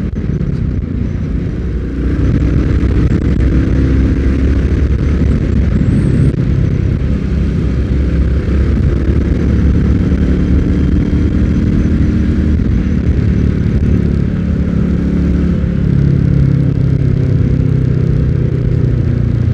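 Royal Enfield Classic 350 Reborn's single-cylinder engine running under way as the bike picks up speed, louder from about two seconds in, its note shifting in pitch as it goes.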